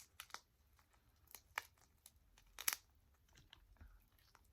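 Close-miked eating and handling of jumbo shrimp: scattered sharp crackles and soft tearing of shrimp shell and flesh, with the loudest crackle about two and a half seconds in.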